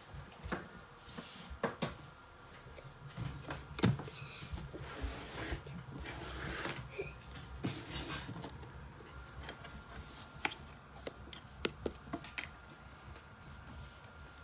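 Handling noise from a phone being picked up and moved about: rubbing against the microphone with scattered clicks and knocks, the loudest about four seconds in.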